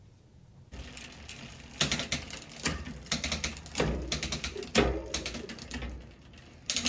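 Freshly waxed bicycle chain running over the rear cassette and derailleur as the crank is turned by hand: a rapid, irregular clicking and clattering with louder clacks about once a second, the stiff wax-coated links being broken in until the chain flexes smoothly. It starts about a second in and eases briefly near the end.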